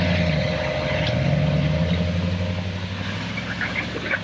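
Off-road 4x4's engine running steadily at low revs, easing off a little toward the end.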